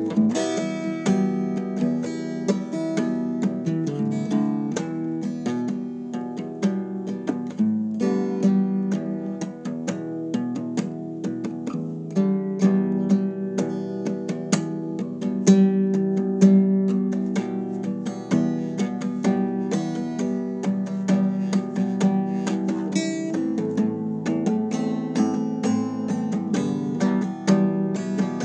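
Acoustic guitar playing a continuous run of plucked notes and strummed chords.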